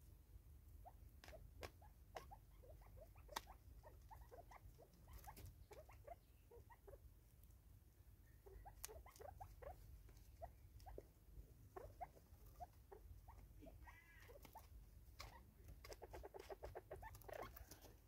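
Faint, irregular ticking of spurfowl pecking seed from a plastic tub, mixed with soft short notes; the pecks come in a quicker run near the end.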